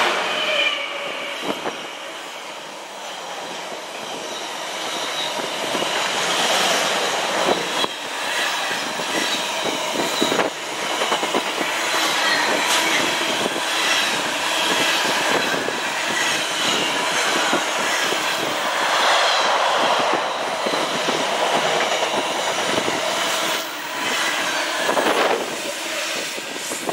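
Container freight train hauled by a Freightliner Class 66 diesel locomotive passing at speed: the wagons' wheels clack rhythmically over the rail joints under a steady rush, with a high wheel squeal.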